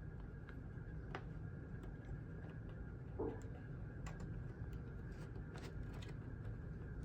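Quiet room with a low steady hum and scattered faint clicks, and a short faint tone about three seconds in; no alarm horn is sounding.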